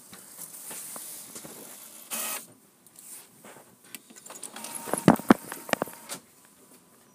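Buttons pressed on an inkjet all-in-one printer's control panel, with a faint steady tone and a quick run of sharp clicks and knocks about five seconds in, the loudest two close together.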